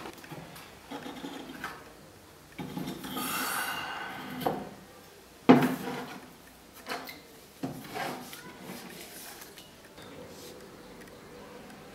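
A steel blade being handled in a plastic bottle and bucket: scraping and rubbing, and several knocks, the loudest about five and a half seconds in.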